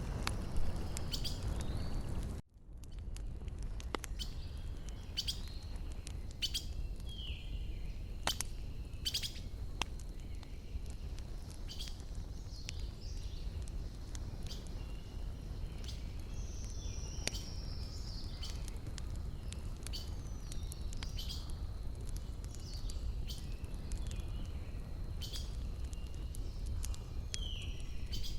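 Wood fire crackling with scattered sharp pops over a low steady rumble, while small forest birds chirp with short falling notes. The sound cuts out for a moment about two and a half seconds in, then resumes.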